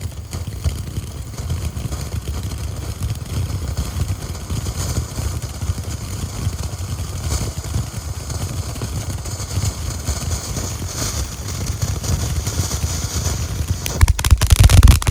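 Baby Boomer firework fountain burning, a steady rushing hiss of spraying sparks. About 14 seconds in it swells to its loudest, and sharp cracks begin at the very end.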